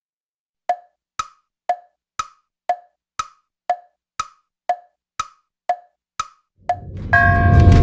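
Wood-block ticks, two a second, alternating between a lower and a higher pitch like a clock's tick-tock. Background music starts near the end.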